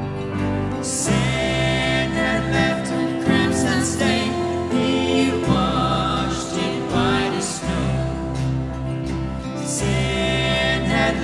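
Live church worship band playing a hymn, a man singing lead into a microphone over keyboard and guitars.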